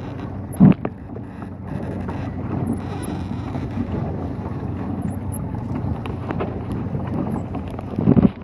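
Wind buffeting the microphone over the steady wash of water under a moving paddle boat, with one sharp knock less than a second in.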